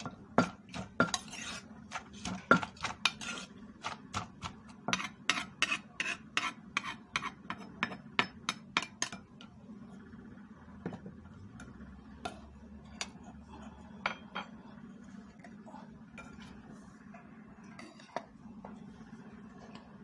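Wooden pestle and metal spoon working papaya salad in a clay mortar: quick knocks and clinks, several a second, for about nine seconds, then only the odd click.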